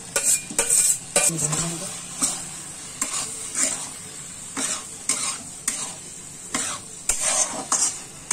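Cut okra sizzling in hot oil and fried masala in a metal kadhai while a metal spatula stirs it, scraping the pan in repeated irregular strokes over a steady frying hiss.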